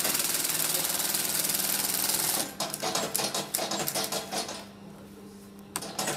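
Industrial post-bed sewing machine stitching a leather wallet seam. It runs fast and unbroken for about two and a half seconds, then makes a few slower single stitches. It pauses for about a second with only a steady motor hum, then starts stitching again near the end.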